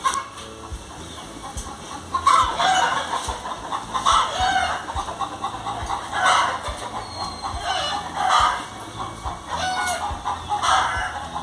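Chickens calling, with a short call about every two seconds.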